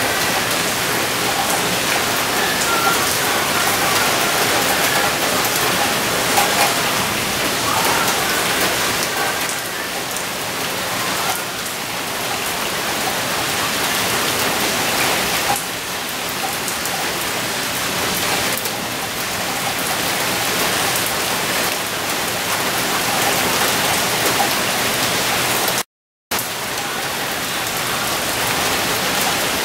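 Heavy rain falling steadily in a thunderstorm downpour. The sound cuts out for a moment about three-quarters of the way through.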